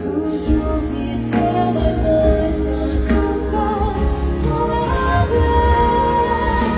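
A male singer singing a ballad live into a microphone with band accompaniment at a stadium concert, heard from the stands, with long held notes.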